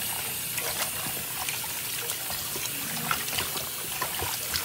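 Kitchen tap running into a plastic bowl of raw chicken pieces as hands rub and rinse them in the water, a steady splashing with many small splashes and knocks.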